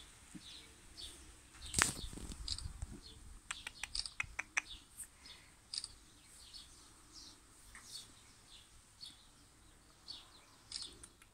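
Faint bird chirps, short high calls scattered throughout, with a brief rustle about two seconds in and a quick run of clicks around four seconds.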